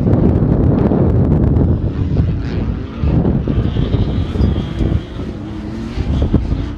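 Off-road race trucks' engines running hard as they race past on a dirt course, with wind buffeting the microphone; in the second half one engine note rises.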